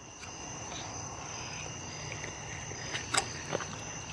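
Insects trilling steadily in several high, even tones, with two short clicks a little after three seconds in.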